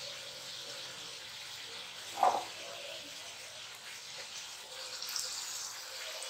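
Bathua puri deep-frying in hot oil: a steady sizzle, with one brief louder sound about two seconds in.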